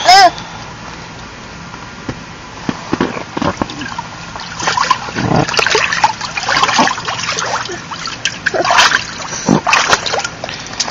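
Water splashing and sloshing in a small inflatable paddling pool as a baby splashes in it, in irregular bursts from about two and a half seconds in. A brief, loud high squeal comes right at the start.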